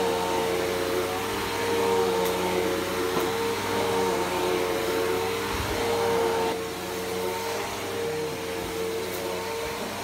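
Bagless upright vacuum cleaner running steadily as it is pushed over carpet, its motor giving a constant high hum over a rush of air. It gets a little quieter about two-thirds of the way through.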